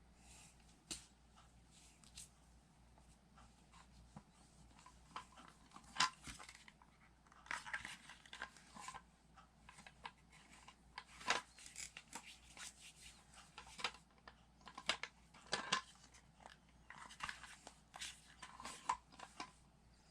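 Small toy pieces being handled and set down: irregular light clicks and rustling, with a few sharper taps about six, eleven and fifteen seconds in.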